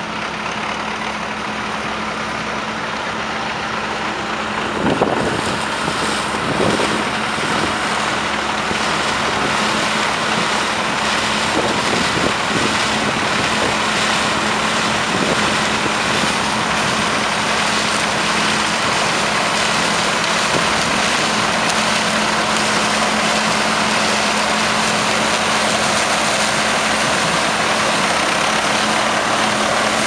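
Massey Ferguson Beta 7260 combine harvester running while harvesting corn: a steady engine hum under a dense rushing of the header and threshing, growing louder over the first five seconds or so as it comes close, with a couple of knocks around five to seven seconds in.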